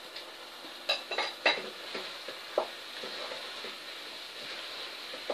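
Potato-and-egg curry sizzling in a pot, with a few sharp knocks of a utensil against the pot about a second in, then a wooden spoon stirring the curry.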